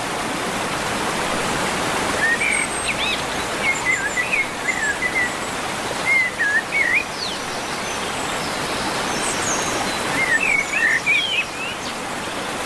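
Steady rush of river water, with small birds chirping in short bursts of quick, rising and falling notes several times over it.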